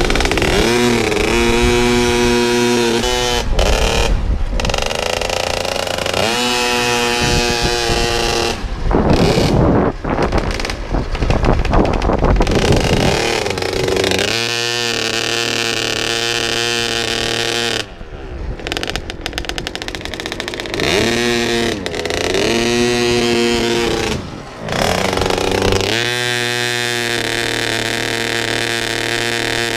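Cobra 50cc water-cooled two-stroke youth motocross bike riding along, its engine revving up again and again, each time rising in pitch and then holding. The rider thinks it may need its carburettor tuned for the altitude so that it accelerates a little better.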